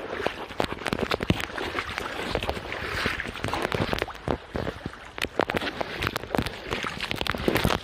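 Footsteps over rocks and leaf litter beside a shallow brook: irregular crunches and knocks, with the brook's water running behind them.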